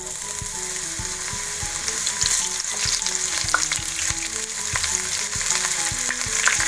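Sweet corn kernels coated in rice flour and cornflour sizzling in hot oil on a tawa, a steady hiss with scattered crackles and pops.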